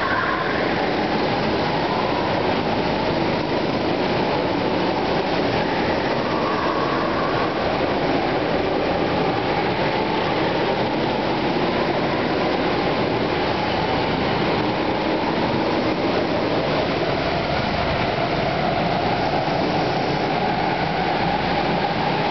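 Several go-kart engines running as karts lap a track, a steady mechanical drone, with one kart passing close at the start.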